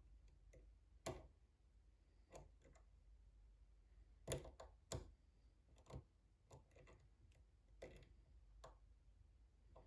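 Faint, irregular clicks of a hook pick and tension wrench working the pins of a pin-tumbler challenge lock, about eight in all, the sharpest a little over four and five seconds in.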